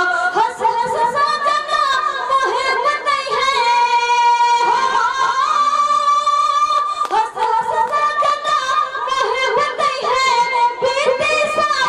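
A woman singing a geet into a microphone, with long drawn-out held notes.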